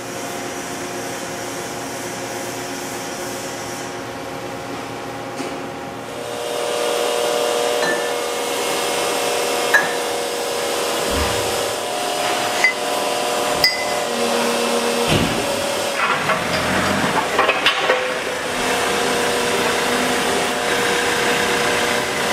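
Metalworking factory floor: a steady hum of running machinery, louder after the first few seconds, with sharp metal clanks and knocks as steel rods and parts are handled. The clanks cluster about three quarters of the way through.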